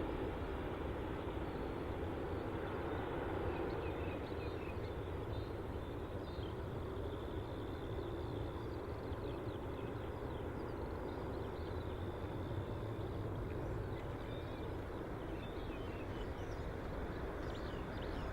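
Low steady rumble of an Airbus A330 airliner's jet engines, easing slightly over the first few seconds and then holding level, with a few faint bird chirps above it.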